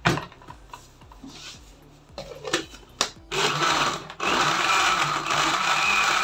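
Countertop electric blender grinding kiwi pieces with ice cubes and water. A sharp knock comes at the start and a few clicks follow; the motor starts about three seconds in, stops briefly, then runs steadily and loudly.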